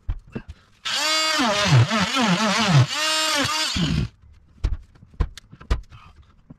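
Handheld electric rotary tool running for about three seconds, its pitch dipping and climbing again and again as it bites into wood, then switched off; a few sharp knocks and scrapes around it.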